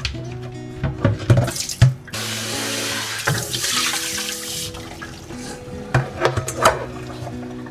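Kitchen tap running for about two and a half seconds, with short knocks and clatter before and after it, over soft background music.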